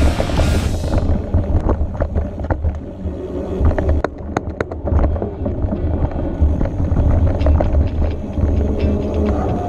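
Mountain bike riding fast over dirt singletrack: a steady low rumble of tyres on the trail, with the bike rattling over bumps and a few sharp clacks about four to five seconds in. Background music fades out in the first second.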